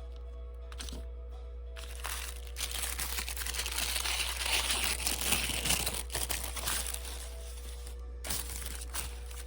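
Packaging crinkling and rustling as a package is opened by hand, for about five seconds starting two seconds in, with two short crinkles near the end, over soft background music.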